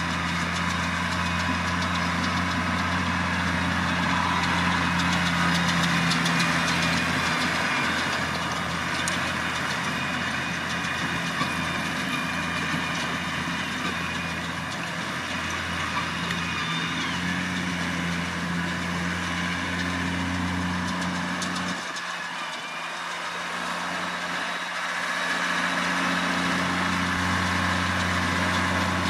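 New Holland T6070 tractor's diesel engine running steadily while working a round baler. Its low engine note fades for a few seconds about three-quarters of the way through, then comes back.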